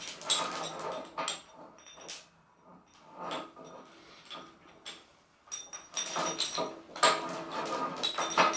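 Chain block being hauled to lift a heavy steel plate: irregular clinks and rattles of the chain running through the block, dropping away for a couple of seconds mid-way, then busier again.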